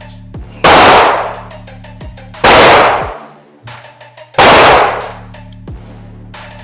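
Three shots from a Glock 19 9mm pistol, evenly paced about two seconds apart, each echoing briefly off the walls of an indoor range.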